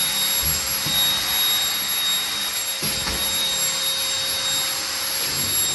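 Vacuum cleaner running steadily with a high-pitched whine, plus a few soft low knocks.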